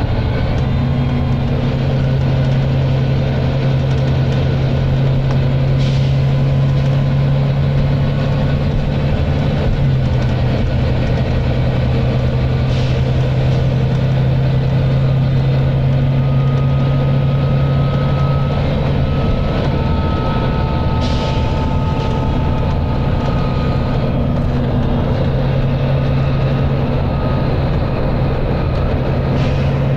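Volvo B9TL double-decker bus's six-cylinder diesel engine under steady thrash at a constant pitch, heard from on board over the rumble of the moving bus.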